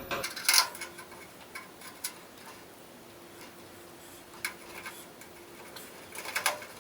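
Scattered light clicks and ticks of small hand work: a screwdriver and small screws being worked to reassemble a plug. The clicks come a few at a time, with a busier run of them near the end.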